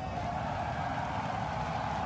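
Starship Super Heavy booster's 33 Raptor engines firing at ignition on the launch pad: a steady, dense rocket rumble just before liftoff.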